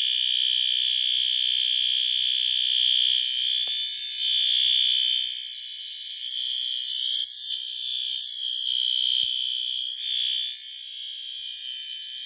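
System Sensor L-series horn strobe sounding in alarm, triggered from a pull station: a loud, high-pitched electronic horn tone held without a break, wavering in level from about halfway through.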